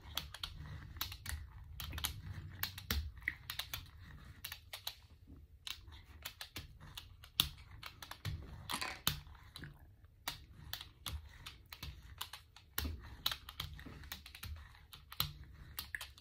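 A rubber brayer rolling acrylic paint out across a gel printing plate: a dense, irregular run of small clicks and crackles.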